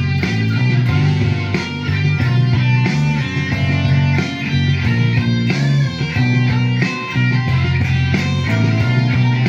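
Electric guitar, a Les Paul-style solid-body, playing a rock riff with a steady rhythm.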